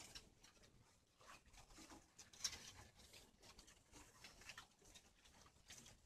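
Faint scattered ticks and rustling, with one sharper tick about two and a half seconds in: spotted doves pecking and foraging on bare soil among grass.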